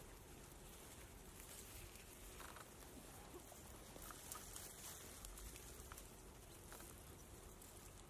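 Near silence: faint, steady outdoor hiss with a few soft, scattered ticks.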